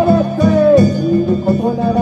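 Music with guitar: a melody that slides up and down in pitch over a steady low note.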